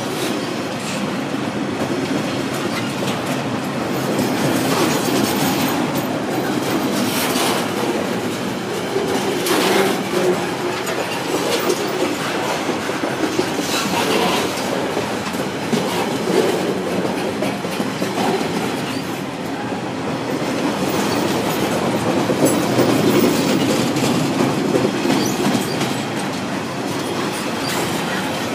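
Freight train's container wagons rolling past close by, steel wheels clattering over the rail joints with scattered sharp clicks, at a steady level.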